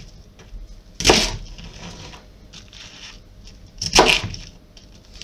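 Kitchen knife cutting a head of white cabbage into large squares on a plastic cutting board: two loud cuts about three seconds apart, each a short crunch through the dense leaves.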